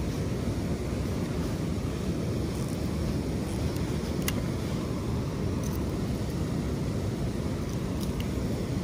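Steady rumbling wind noise buffeting the microphone, with a few faint ticks.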